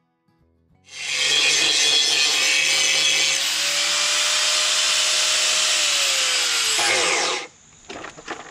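Handheld angle grinder grinding the edge of a board down to a marked line. It starts about a second in and runs at a steady pitch for about six seconds, then winds down as it is switched off. A few light knocks follow as the grinder and board are set down.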